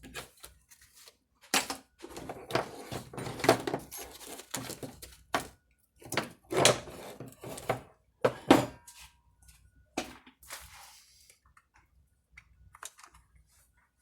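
Irregular clicks, knocks and rattles of chainsaw parts and hand tools being handled during reassembly, with a few sharper knocks among quieter fiddling and short pauses.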